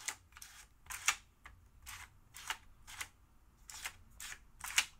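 Tiles of a QiYi magnetic 15-puzzle sliding and clicking into place as they are pushed around the frame: a dozen or so light clicks at irregular spacing.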